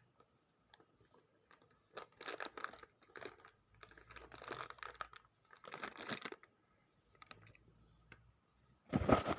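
Plastic packaging being handled and torn open, crinkling and crackling in several short bursts, with a louder burst near the end.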